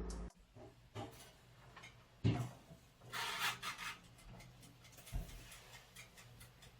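The end of background music, then quiet handling sounds in a small room: a soft knock, a brief rubbing rustle, and another low knock.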